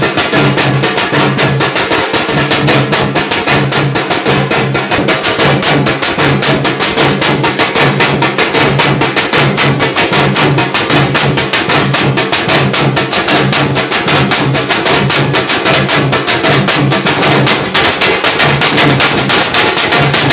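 Loud ritual percussion: drums beaten in a fast, steady rhythm with cymbals or jingles ringing continuously over them.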